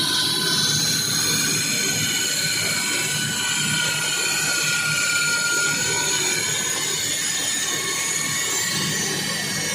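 Walk-behind floor saw cutting into the floor, a steady loud grinding with several high, wavering squealing tones over the saw's running motor.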